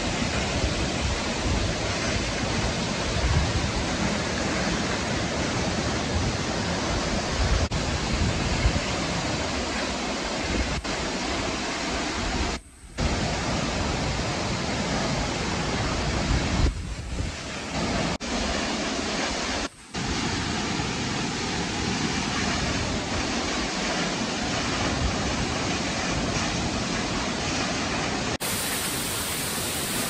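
Steady rushing of a 10 m waterfall crashing into its plunge pool, an even wash of water noise that cuts out abruptly twice for a moment.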